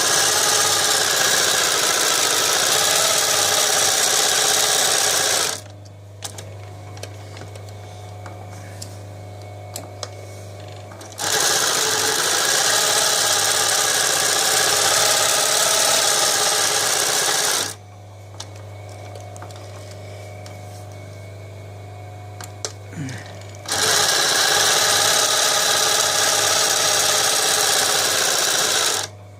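Class 332 post-bed shoe sewing machine from Podolsk (PMZ), with driven upper and lower rollers and needle feed, sewing in three runs of about five to six seconds each. In the pauses between runs its motor keeps humming steadily.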